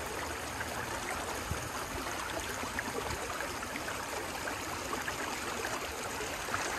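Shallow creek flowing over rocks: a steady babbling rush of water with small splashes.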